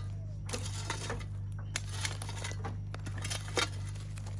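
Shovel digging into an underground cooking pit, scraping and clinking against dirt and stones in a string of short, irregular strokes.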